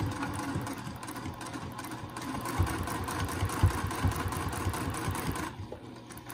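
Electric domestic sewing machine stitching steadily through layered cotton at an even speed, stopping near the end.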